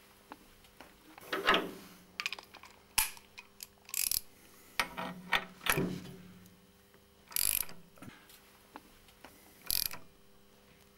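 Ratchet wrench clicking in about six short bursts as it turns a filter tool, tightening a new spin-on oil filter on a motorcycle engine.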